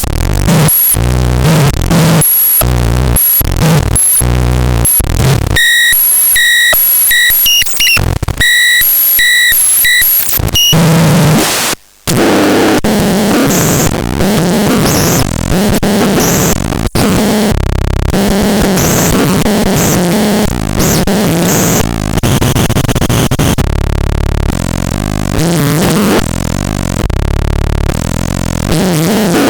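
Harsh electronic noise from a noise instrument: rapidly chopped bursts of distorted noise, then stuttering high-pitched beeps, a sudden brief dropout about twelve seconds in, and after it a dense, continuous wall of distorted noise with shifting texture.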